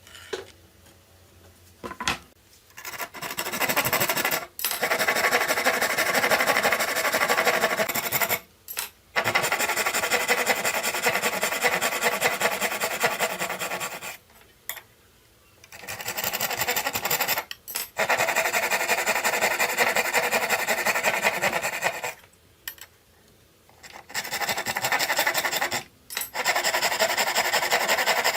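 Hand tool working wood with fast scraping strokes in runs of several seconds, stopping briefly now and then.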